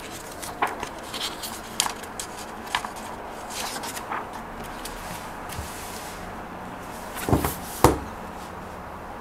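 Heavy pages and endpaper of a large hardcover photobook being turned and handled, paper rustling and flapping with small ticks. A little over seven seconds in come two dull thumps about half a second apart as the book is closed and set down on a wooden table.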